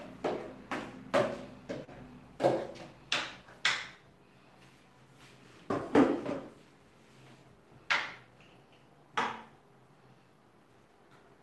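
Kitchen handling sounds: a spoon knocking and scraping, about two strokes a second, as stew is scooped from a plastic container into a frying pan. About six seconds in comes a louder clatter as the container is put down in the steel sink, followed by a couple of single knocks.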